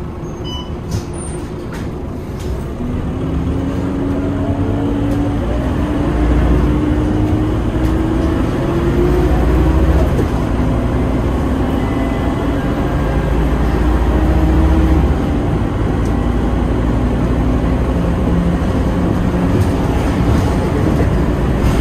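Scania K230UB bus's five-cylinder diesel engine heard from inside the passenger cabin, pulling the bus up to speed with a deep rumble. Its note climbs steadily, then drops back with a slight fall in level at a gear change about fifteen seconds in.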